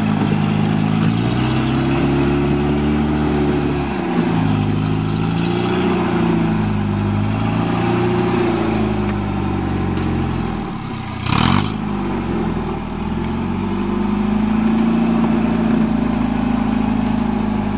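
Rock-crawler buggy's engine revving up and easing off again and again under load as it climbs a steep rock ledge, with one short sharp bang about eleven seconds in.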